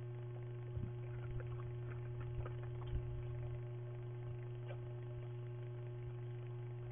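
Steady electrical hum from a security camera's microphone, with a few faint scattered clicks and scrapes in the first half.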